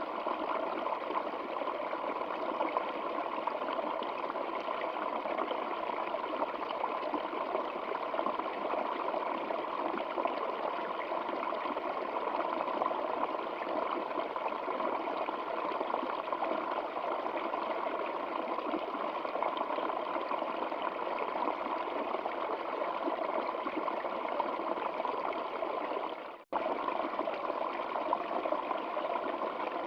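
Flowing stream water: a steady, even trickling rush with no change in strength. About 26 seconds in, the sound cuts out for a split second and then resumes.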